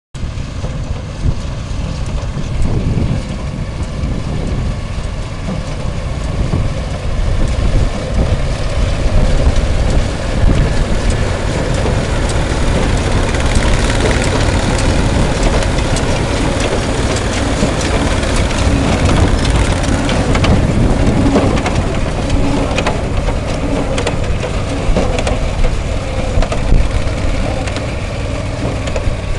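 John Deere 116W baler at work, its Wisconsin air-cooled engine running steadily under a constant low rumble, with rapid knocks and clatter from the baling mechanism throughout.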